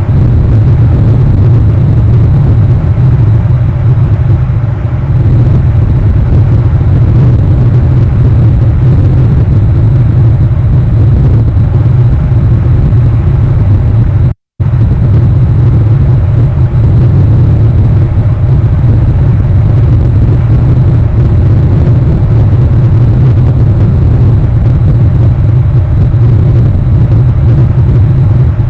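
Loud, steady low rumble with no distinct events, broken by a brief complete audio dropout about halfway through.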